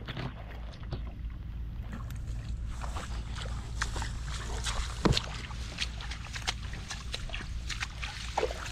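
Hands rustling through grass and weeds and squelching in shallow mud and water, a scatter of short crackles and small splashes over a steady wind rumble on the microphone. A sharper single splash or knock comes about five seconds in.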